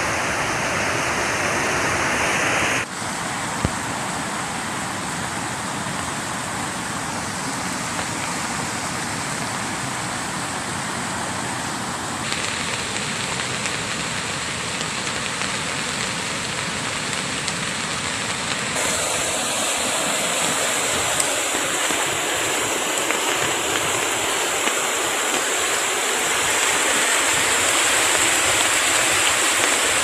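Muddy floodwater rushing down a swollen forest stream: a steady, loud roar of turbulent water. The roar changes character abruptly about three, twelve and nineteen seconds in.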